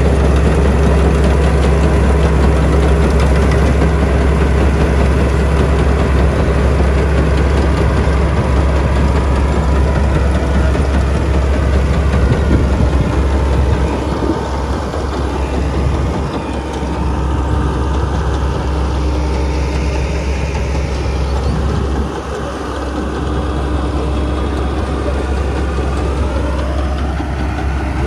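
A heavy engine running steadily with a deep, constant rumble, dropping a little in level about halfway through and again later.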